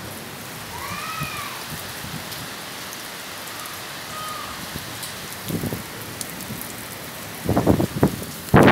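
Heavy rain falling steadily, an even hiss of downpour on roofs and ground. A short high chirp sounds about a second in, and near the end gusts of wind buffet the microphone in loud rough bursts.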